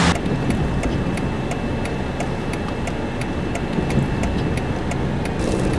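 A car's turn-signal indicator ticking, about three ticks a second, over the steady rumble of road and engine noise inside the moving car.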